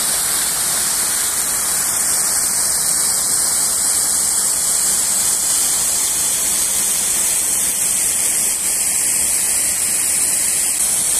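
Waterfall: water pouring and rushing with a steady, unbroken hiss.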